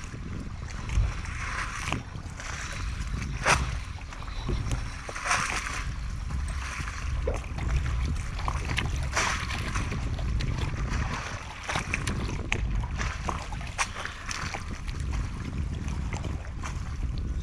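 Wind rumbling on the microphone over lapping harbour water, with a few short sharp clicks and splashes scattered through it.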